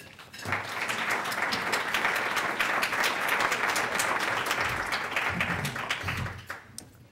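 Audience applauding: dense clapping that builds just after the start, holds steady, and dies away about six and a half seconds in.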